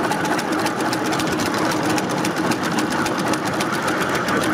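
Live-steam miniature Mogul (2-6-0) locomotive modelled on a Denver & Rio Grande engine, running along the track and heard close up from on board: a rapid, even mechanical clatter.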